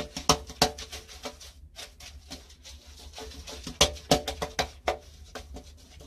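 Paintbrush laden with emulsion paint being worked onto a wall: an irregular run of sharp taps and sticky slaps from the bristles and brush against the surface, loudest at the very start, just after and a little before four seconds in.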